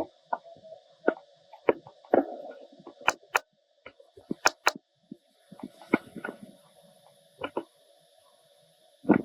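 Irregular light clicks, taps and knocks, a dozen or so sharp strikes scattered with gaps, a pair close together about four and a half seconds in.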